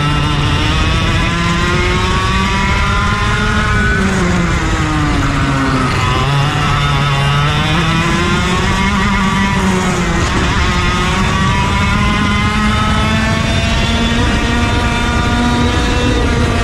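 Racing go-kart engine running hard at race pace, its pitch climbing on the throttle and dropping off several times as it goes around the track.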